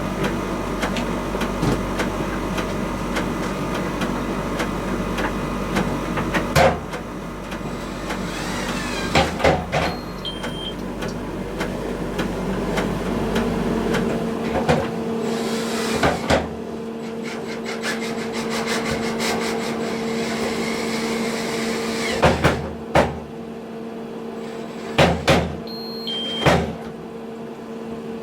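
Miele T1 heat-pump tumble dryer running, its drum turning, with occasional knocks as the laundry drops inside. About halfway through the deep low hum stops and a steadier, higher two-note hum carries on.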